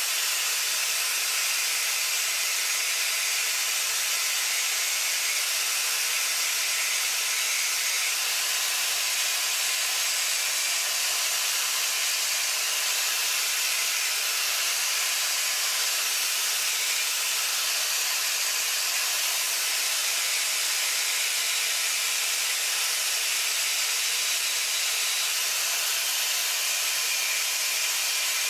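Angle grinder grinding steel: a steady hiss that runs on without a break.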